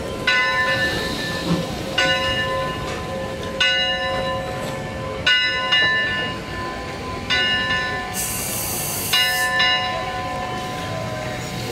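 The bell of the 1875 Eureka & Palisade No. 4 steam locomotive ringing slowly as the engine moves, six strokes about two seconds apart. About eight seconds in there is a short hiss of steam.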